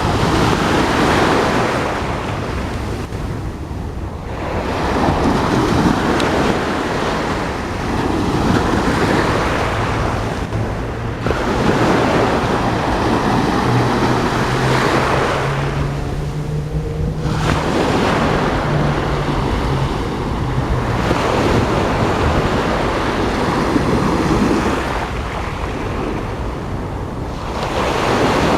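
Sea waves surging up and washing back over the pebble shore of a Mediterranean beach, in swells every few seconds. A low steady hum runs under the waves from about ten to twenty seconds in.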